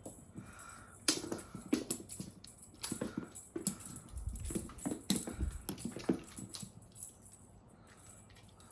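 Cats scampering and pouncing during play: irregular taps and scuffles, with two heavier low thumps about four and five and a half seconds in.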